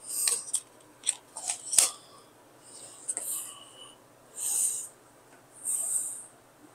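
A few sharp clicks of plastic as true wireless earbuds are taken from their charging case and fitted into the ears, then a series of soft, hissy breaths through the nose, about one a second.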